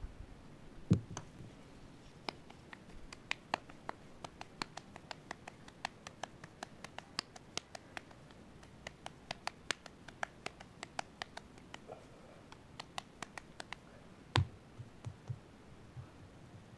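Hands kneading and working a lump of wet mud-clay, with many small irregular clicks and scratches, and two dull thumps, about a second in and near the end, as clay is pressed onto the fireplace form.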